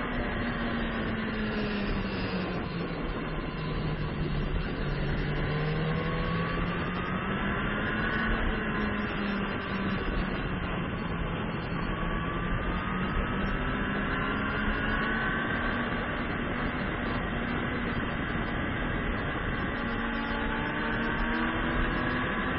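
Onboard sound of a sport motorcycle's engine running hard on a road-racing circuit, with a steady rush of noise beneath. The engine note dips and climbs several times as the throttle is worked through the corners.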